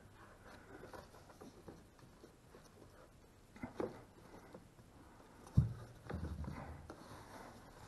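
Handling noise from fitting a BMW M Performance plastic side-skirt blade against the car's sill over bubble wrap: faint rustling and light taps, two knocks near the middle, and a sharp low thump about five and a half seconds in, followed by a brief low rumble.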